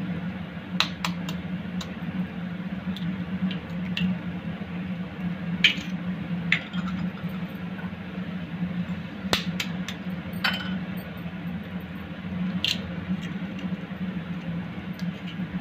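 Eggs tapped against a metal spoon to crack them and dropped into a porcelain bowl, with spoon and dish clinking. There are about a dozen sharp taps and clinks at irregular spacing over a steady low hum.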